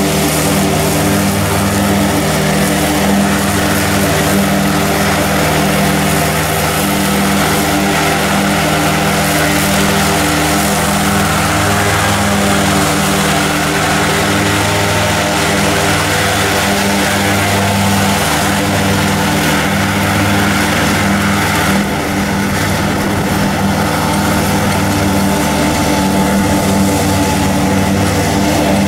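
Mower engine running steadily at working speed while mowing.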